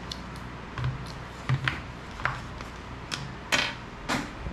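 Bluegrass Rogue MIPS bicycle helmet being handled and tried on: about seven short plastic scrapes and clicks.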